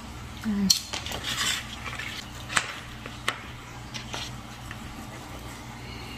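Knife and fork cutting a grilled beef steak on a plate: short scrapes and sharp clinks of metal cutlery against the plate, loudest about a second in, then a few single clinks.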